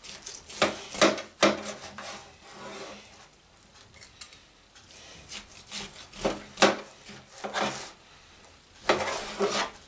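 Large kitchen knife sawing through a smoked bone-in pork roast between its rib bones: irregular scraping strokes with sharp knocks, the loudest about a second in, near seven seconds and near the end.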